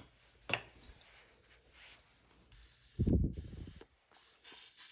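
Hand-pumped oil spray bottle misting cooking oil over frog legs in an air fryer basket: a click, then hissing sprays, the louder one broken off about four seconds in before the next spray starts.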